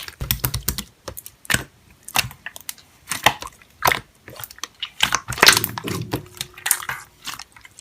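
Slime being squeezed and poked by hand, giving an irregular run of sharp clicks and crackles that is busiest about five seconds in.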